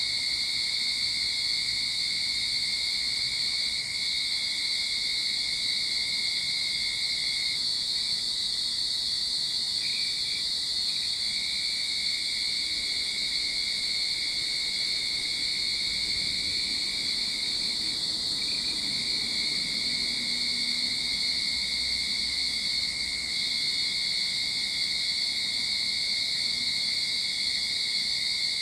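Cicadas singing in a continuous chorus: a steady shrill drone with a lower, thinner tone beneath it, unbroken throughout.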